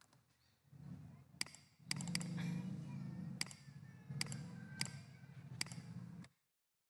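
Computer mouse clicking: about seven sharp single clicks, a few close together, over a low steady hum that cuts off suddenly near the end.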